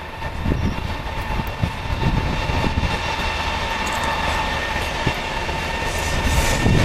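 EP20 dual-system electric locomotive and its passenger train approaching on the main line. A steady high whine grows louder as the train nears, over a low rumble with a few scattered low thumps.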